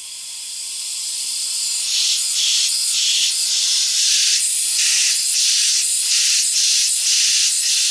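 Pressurised air hissing out of the leaking O-ring seal where the 034 Motorsport inlet pipe joins the turbo on an Audi 2.7T twin-turbo, under a boost leak test: a lot of air is escaping past the seal. The hiss builds over the first two seconds, then flutters on and off unevenly.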